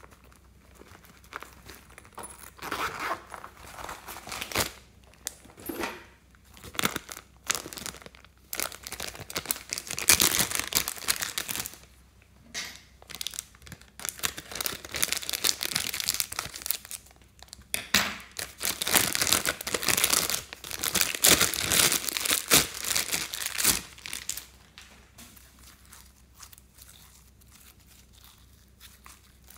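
Plastic bag crinkling and rustling in irregular bursts as it is handled and snipped open with scissors, growing quiet near the end.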